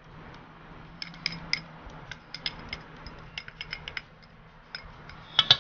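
Wooden utensil tapping and scraping against a small glass bowl, a run of light irregular clicks as chili pepper flakes are knocked out, with a quick cluster of clicks near the end.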